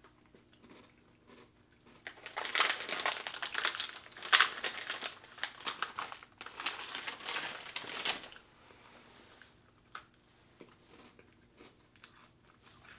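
Plastic biscuit packet crinkling as it is handled, loud for about six seconds starting two seconds in. Faint crunchy chewing of a biscuit before and after.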